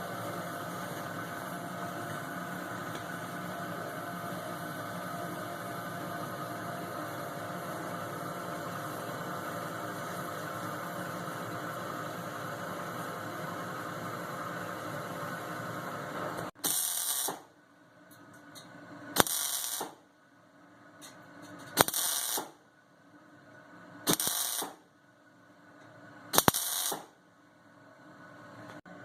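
Welding on a two-stroke expansion chamber: a steady hiss for about sixteen seconds, then five short bursts, one about every two and a half seconds, most of them ending in a sharp click, as the seam is welded in short stitches.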